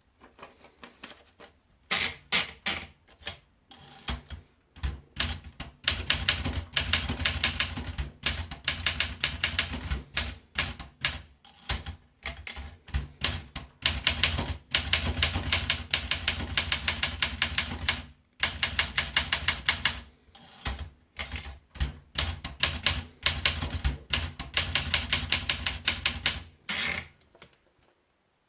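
Olympia SM9 manual portable typewriter being typed on in quick runs of keystrokes, several a second, broken by short pauses. The typing stops shortly before the end.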